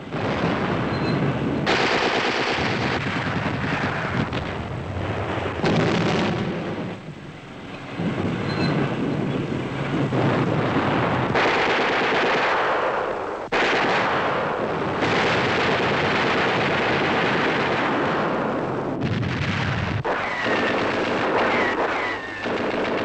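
Sustained machine-gun fire and other gunfire, a dense continuous clatter that changes abruptly at several points, with a brief dip about a third of the way in.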